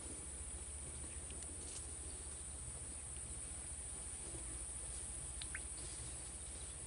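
Quiet, steady outdoor ambience: a constant high-pitched insect drone over a low rumble, with a few faint ticks.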